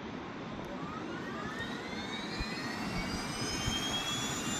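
Pratt & Whitney PT6A turboprop engine being wound up on its starter from a battery ground power unit. Its turbine whine rises steadily in pitch from about a second in, over a low rumble.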